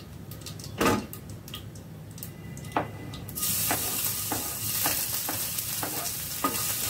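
Crushed ginger and garlic hitting hot oil in a frying pan: after a few light knocks, a loud sizzle starts about three seconds in and keeps going, with the spatula clicking against the pan and board.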